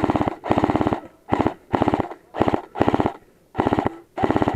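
Airsoft electric gun firing full-auto in short bursts, about eight bursts of rapid clicking shots at roughly twenty a second, each lasting about half a second.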